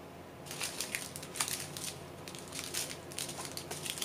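Small plastic baggies of diamond painting drills crinkling as they are picked up and handled, a quick irregular crackle that starts about half a second in.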